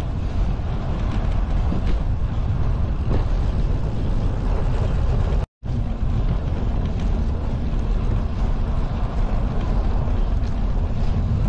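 Steady wind rush on the microphone and the rolling rumble of a bicycle moving over brick paving. The sound drops out for a moment about halfway through.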